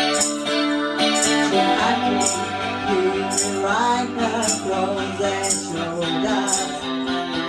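A band playing a country-rock song: guitars and keyboard chords under a singing voice, with a tambourine struck about once a second.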